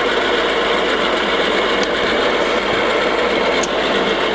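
Boxford STS three-phase lathe running steadily with the spindle at 225 RPM, a constant drone of motor and headstock gearing; the headstock is a little bit noisy. Two light clicks come about two seconds and three and a half seconds in.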